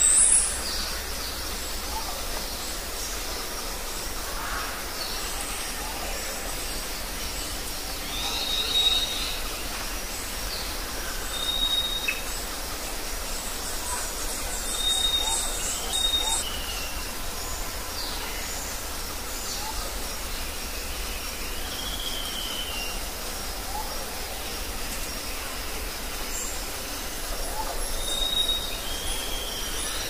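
Rainforest ambience: a steady high insect drone, with birds giving short, level whistles every few seconds and a few sliding calls. There is a brief sharp hiss right at the start.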